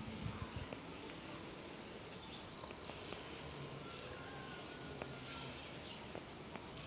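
A high insect drone from the surrounding trees, cutting out for a couple of seconds midway and again briefly near the end. Under it, sugar poured from a steel tumbler runs in a soft hiss onto wet almond paste in a brass pan.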